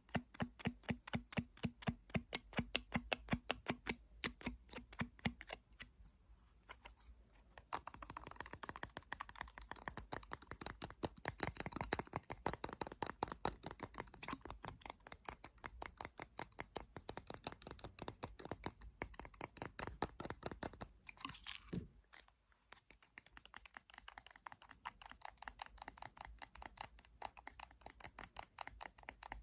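Rapid, continuous ASMR tapping on hand-held objects, several sharp taps a second. There are brief pauses about seven and twenty-two seconds in, and after the first pause the taps sound brighter.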